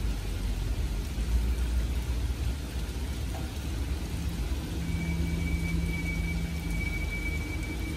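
Steady rain with a continuous low rumble beneath it. About five seconds in, a thin high steady tone and a low hum come in together for a few seconds.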